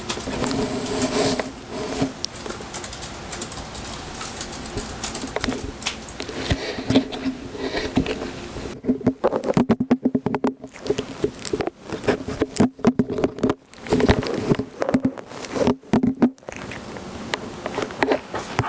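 Kitten chirping in runs of quick, short chirps, coming thickest and fastest in the second half.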